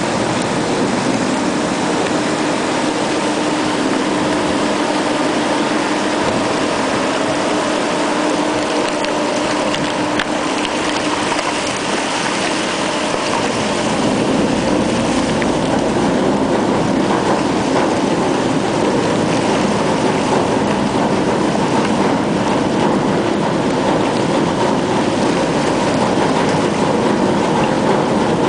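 A ship moving through broken pack ice: a steady rush of water and ice along the hull, over a faint hum from the ship's engine. The low rumble grows a little fuller about halfway through.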